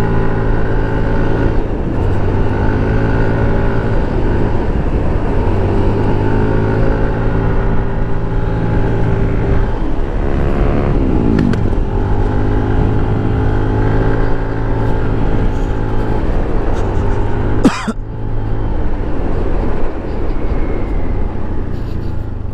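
Motorcycle engine running under way, its pitch climbing and easing with the throttle and gears, dropping and rising again about ten seconds in. A short sharp knock sounds about eighteen seconds in.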